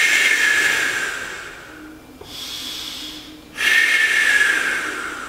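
A man breathing deeply and audibly through a held knees-to-chest stretch: a long exhale at the start and another about three and a half seconds in, each fading out, with a quieter inhale between.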